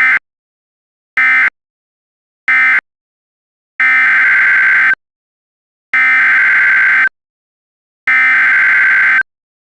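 Emergency Alert System SAME digital data bursts. Three short bursts come a little over a second apart, then three longer bursts of about a second each, two seconds apart, making up an alert header.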